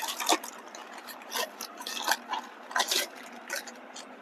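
Hands handling a packaged spare part, making a string of short, irregular rubbing and scraping scuffs.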